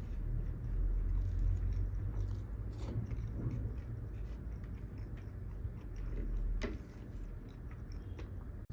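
Close-miked chewing and biting of food, with small wet clicks and crunches scattered through, over a steady low hum.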